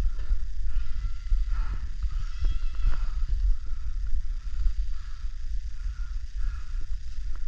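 Steady low rumble on a body-worn camera microphone, with scattered light clicks and creaks of handled gear.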